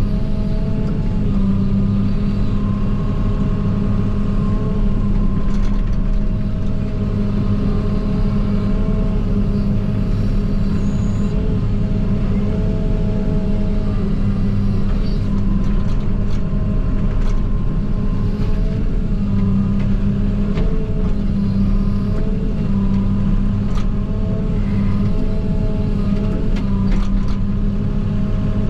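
JCB 48Z-1 mini excavator's diesel engine running steadily under load, heard from inside the cab, with a whine that wavers in pitch and comes and goes as the hydraulics are worked. A few short knocks now and then.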